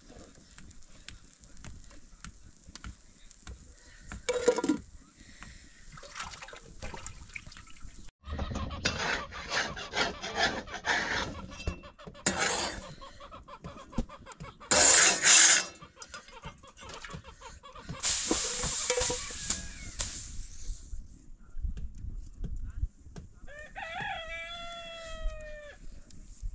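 A rooster crows once near the end, one long call that slides down in pitch. Earlier there are several bursts of rustling and scraping, the loudest about halfway through.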